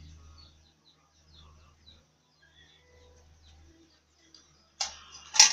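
Faint, scattered bird chirps. Near the end come two sharp knocks about half a second apart, the second louder.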